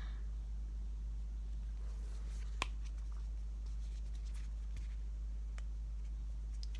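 Steady low hum with a few faint taps and clicks, the sharpest about two and a half seconds in, from a makeup brush and an eyeshadow palette being handled.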